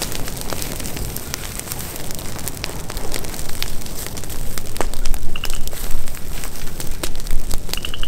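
Dry grass and brush crackling with many sharp pops as they catch fire from a drip torch in a prescribed burn, over a low rumble of wind on the microphone.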